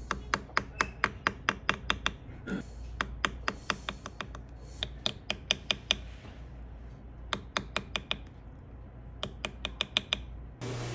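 Steel beading tool clicking on the gold prongs of a diamond pavé setting as the prongs are rounded over the stones: sharp clicks about four a second in runs of several, with short pauses between runs.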